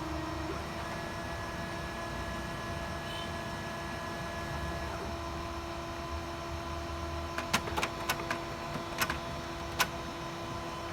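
HP Color LaserJet Pro MFP laser printer going through its power-on start-up cycle: a steady motor hum with a higher whine for the first few seconds, then a quick run of sharp mechanical clicks near the end.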